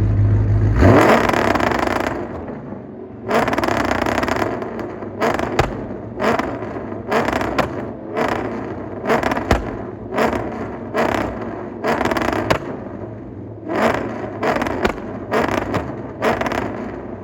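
Cammed Ford Crown Victoria's 4.6 V8 being revved against an MSD two-step launch limiter: one long rev about a second in, then short sharp blips about once a second. These are the limiter's pops, meant to make the exhaust shoot flames.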